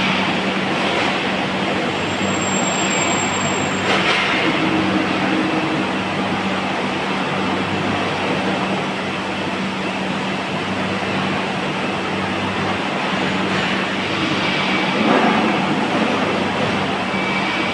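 Large roll-turning lathe running as it machines a grooved steel rolling-mill roll: a steady, noisy mechanical drone over a constant low hum, briefly louder about four seconds in and again near fifteen seconds.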